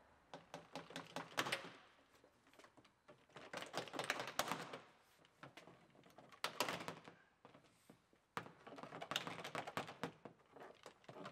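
Plastic upper trim panel of a GMC Yukon liftgate being wiggled and pulled loose, its retaining clips and plastic clicking and crackling in four bouts of rapid ticks.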